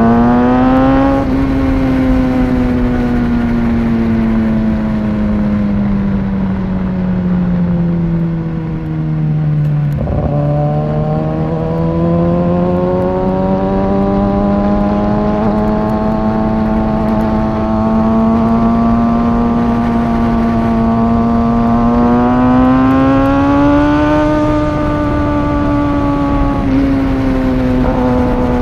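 Kawasaki ZX6R 636 inline-four engine running through a Two Brothers aftermarket exhaust while riding. The engine note falls slowly over about ten seconds, a brief knock comes about ten seconds in, then the note climbs gradually and holds fairly steady to the end.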